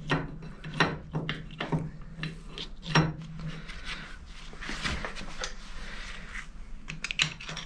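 Scattered metal clicks and knocks, with a scraping rub about five seconds in, as the cross-slide screw of a Harrison lathe is worked forward by hand during its strip-down.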